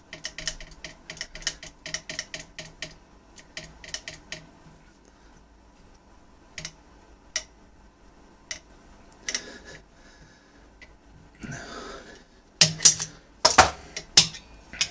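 Sharp metallic clicks from locking pliers on a rust-frozen pistol barrel held in a bench vise, as the pliers are worked to twist the barrel free. A quick run of clicks comes first, then scattered single ticks, a short scrape, and a few louder clacks near the end.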